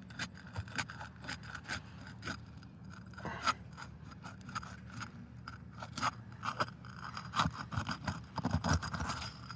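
A roofing snake scraping and prying under an asphalt shingle, breaking its seal loose, with irregular scrapes and sharp clicks.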